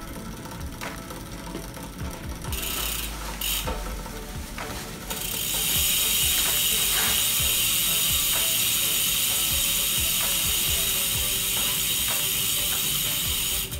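Birdy 1 folding bike's drivetrain turned by hand: chain running over the newly fitted chainring and the rear freehub's pawls ticking. From about five seconds in, the freehub gives a steady, fast buzz as the rear wheel spins freely, which cuts off sharply just before the end.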